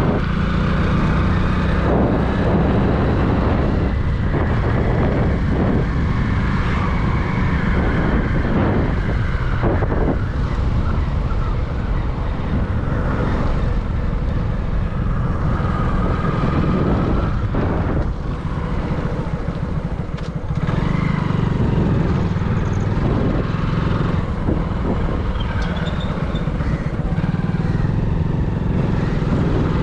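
A motor vehicle running steadily and close, a loud continuous rumble that dips briefly about two-thirds of the way through.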